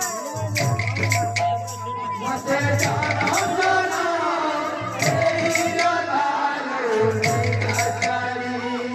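Live Odia kirtan party music: drums beating in repeated phrases under steady jingling cymbals, with a wavering melody line above them.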